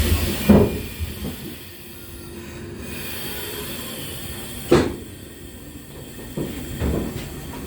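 Air-operated doors of a Sydney Trains V set intercity carriage closing. A hiss of air fades out as the doors thud shut about half a second in. Another sharp door thud comes near five seconds and softer knocks near the end, over the train's steady low hum.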